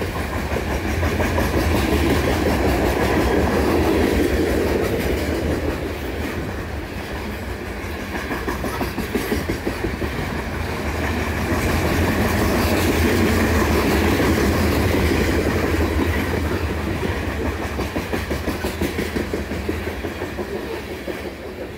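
Loaded freight coal cars rolling past: a steady rumble with the clickety-clack of wheels over the rail joints. It swells twice as the cars pass and eases off near the end.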